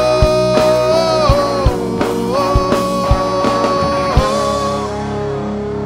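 Rock band playing live: a male singer holds long notes over acoustic and electric guitars and a drum kit beating steadily. About four seconds in the drums stop and the guitars ring on, starting to fade.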